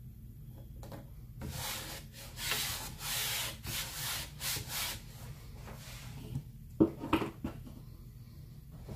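A squeegee scraped repeatedly across a silkscreen transfer, spreading chalk paste: about seven quick scraping strokes, then two sharp knocks a couple of seconds later.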